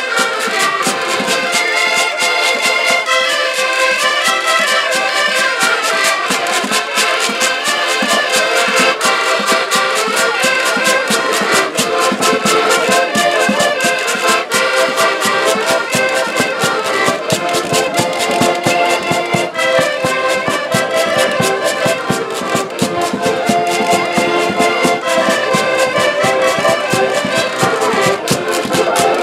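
A band of several button accordions playing a Portuguese folk tune together, with a large bass drum beating time underneath.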